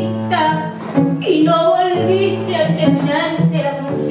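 A woman singing over a cello that holds low sustained notes beneath her voice.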